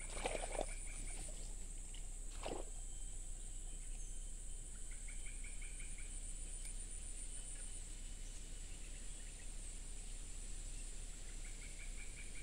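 Tropical forest ambience: a steady high insect buzz, with a short rapid chattering animal call repeated three times, near the start, in the middle and near the end. A couple of soft brief rustles come in the first few seconds.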